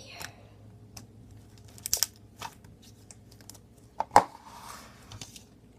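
Firm slime being squeezed and stretched by hand, trapped air bubbles popping with sharp clicks and crackles; a few scattered pops, the loudest about four seconds in, followed by a short crackle.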